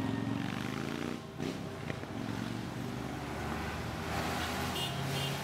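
Low, steady rumble of a vehicle engine passing close by in road traffic.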